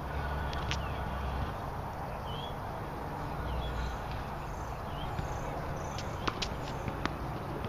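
A few faint, sharp taps of tennis balls being hit and bouncing on the far side of a hard court, over a steady low outdoor rumble, with a few faint bird chirps.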